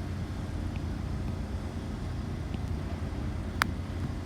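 Steady low rumble of city traffic, with a single sharp click about three and a half seconds in.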